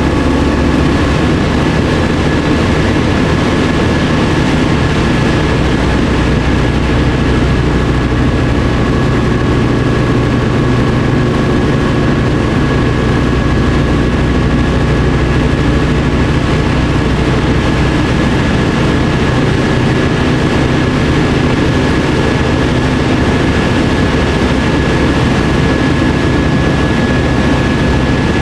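Cabin noise of a Tecnam P2002 Sierra in flight: its Rotax four-cylinder engine and propeller make a steady, unchanging drone.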